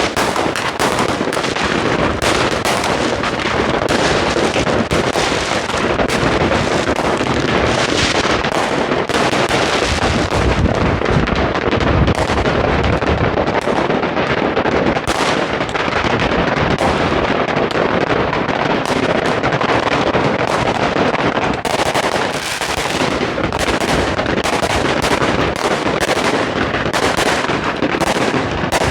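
Dense, continuous fireworks and firecrackers: a nonstop barrage of overlapping bangs, crackles and rapid strings of reports going off all around, with no gaps between them.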